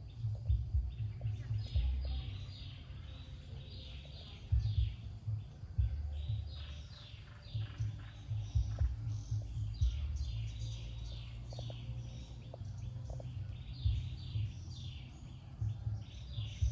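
Birds chirping in quick series of short, falling notes, over an uneven low rumble.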